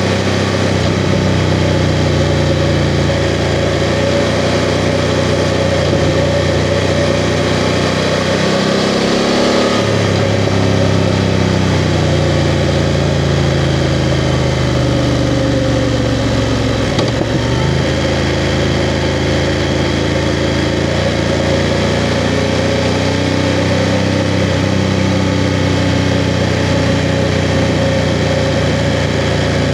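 BMW F 750 GS's parallel-twin engine running while riding, its pitch shifting with throttle and gear changes, about eight to ten seconds in and again with a brief dip about seventeen seconds in.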